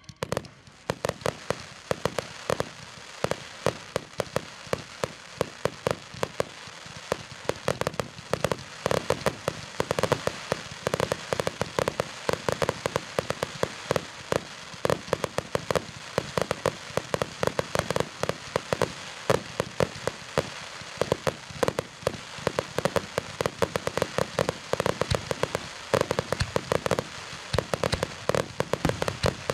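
Fireworks display: a dense, unbroken run of crackling and sharp bangs from aerial shells, several reports a second.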